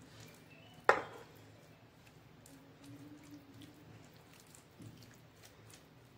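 A hand rubbing wet spice marinade paste onto a steamed mutton leg on a steel plate: faint squishing, with one sharp clink against the plate about a second in.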